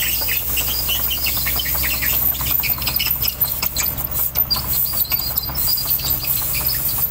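Birds chirping repeatedly, short calls one after another, over the low, steady rumble of an idling truck engine.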